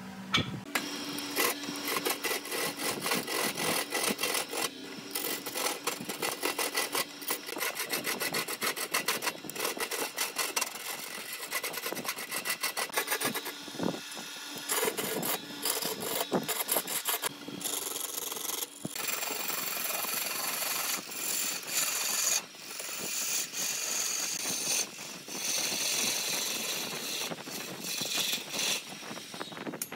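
Turning gouge cutting into a large, out-of-round log spinning on a wood lathe: a rough, continuous scraping full of rapid clicks as the tool strikes the uneven surface of the blank, with a few sudden short breaks.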